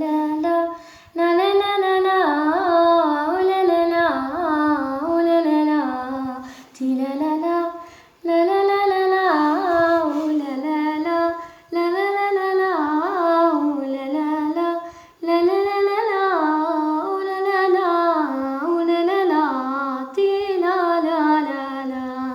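A female voice singing unaccompanied, an ornamented melody with wavering pitch, sung in phrases of a few seconds with short breaths between them.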